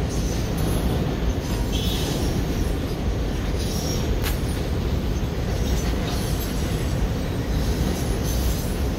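Freight train of autorack cars rolling across a steel girder bridge: a steady low rumble of wheels on rail. There are a couple of brief wheel squeals near the start and a sharp click about four seconds in.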